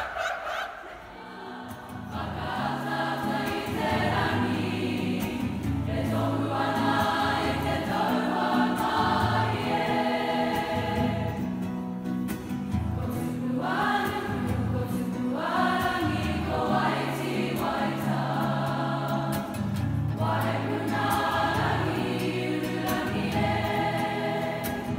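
A group of voices singing a song with instrumental backing and a steady stepping bass line.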